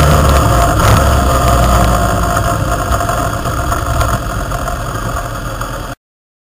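Motorcycle engine and wind rush at road speed, heard through a bike-mounted camera's microphone as a steady low rumble that slowly gets quieter. It cuts off suddenly about six seconds in.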